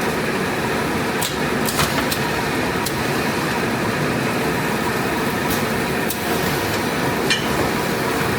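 ATR-320B automatic turret rewinder running steadily: a continuous machine hum with several sharp clicks at irregular intervals.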